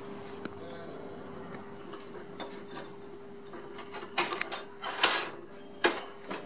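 Tools and objects on a wall shelf knocking and rattling as a hand searches among them, a scatter of sharp clatters that grows busier in the second half, the loudest about five seconds in, over a steady hum.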